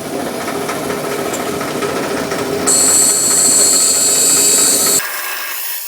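Bandsaw running steadily, then cutting through a workpiece from a little under three seconds in, a louder high-pitched rasp that lasts about two seconds. Near the end the low hum cuts off suddenly.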